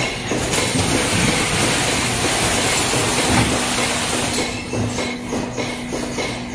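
High-speed tube cartoning machine running, with a continuous mechanical clatter and a steady hum. A dense hiss fills the first few seconds, then gives way to a fast, even clacking of the machine's cycle.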